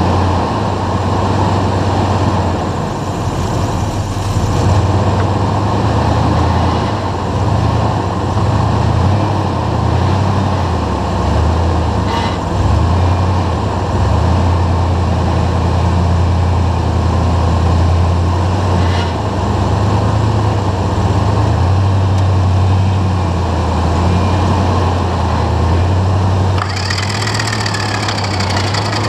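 Off-road rock-crawling vehicle's engine running at low, shifting revs as it works over the rocks. A brighter hiss comes in near the end.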